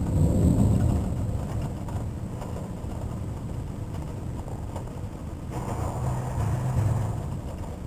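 Thunder rumbling low, swelling once at the start and again about five and a half seconds in.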